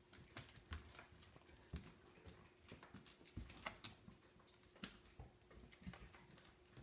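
Dog's and kitten's claws clicking and paws scuffling on a hardwood floor in irregular quick taps, with a couple of soft thumps, as the animals scramble after a wand toy.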